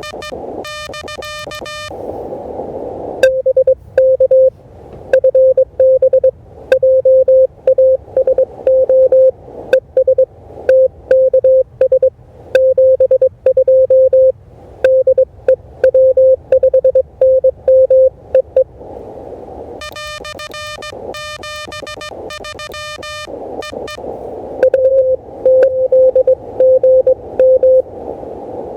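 Morse code (CW) from an Elecraft KH1 transceiver: a steady tone of about 500 Hz keyed in rapid dits and dahs over receiver hiss. A second, buzzier and slightly higher keyed tone sends in the first two seconds and again about two-thirds of the way through.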